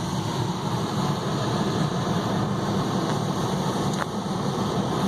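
Steady air-conditioning blower and idling engine noise heard inside the cab of a 2009 Ford F-250 with the 5.4 L three-valve V8, with a light click about four seconds in.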